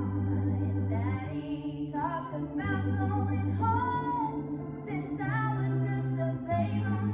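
A woman singing a gospel song over organ accompaniment, with sustained bass notes changing under the melody.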